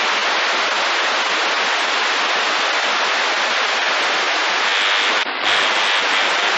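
Steady static hiss from an open radio receiver with no station transmitting, the band noise between skip contacts. About five seconds in the hiss drops out for a moment, then returns with a faint high whistle in it.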